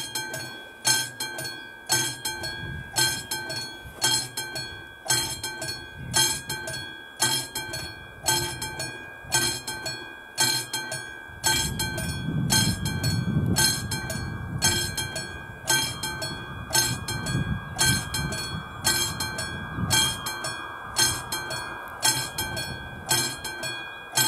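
AŽD 71 level-crossing warning bell, a classic mechanical bell, ringing in steady regular strokes a little more than once a second, the signal that a train is approaching the crossing. A low rumble rises about twelve seconds in and fades by about twenty seconds.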